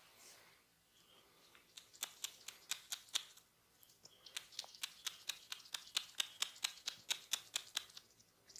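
Quick rhythmic hand taps of a massage, about five sharp strikes a second, in two runs with a short pause between them.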